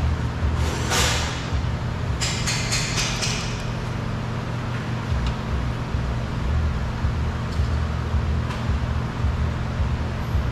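Scraping followed by a quick run of clicks as a door piece is worked loose, over a steady low rumble of a vehicle or traffic.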